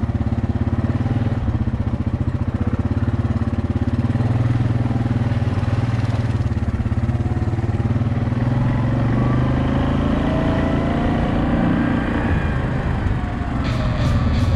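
Yamaha Kodiak 700 ATV's single-cylinder four-stroke engine running under way at a steady pace, its pitch rising and then falling in the last few seconds.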